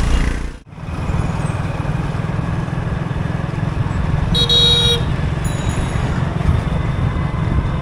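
A road vehicle running, with a horn honking once for about half a second midway.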